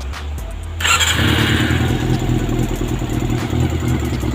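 Freshly rebuilt Honda CB400 motorcycle engine, fitted with a new cylinder head, starting about a second in and then running steadily at idle. It has a light tick from the top of the engine, which the owner thinks may be new parts not yet seated.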